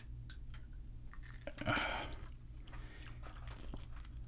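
Close-miked mouth sounds of someone chewing a Skittles candy: small wet clicks, with one louder burst of mouth noise about two seconds in.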